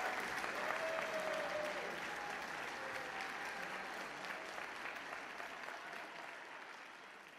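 Concert audience applauding, the clapping fading away near the end.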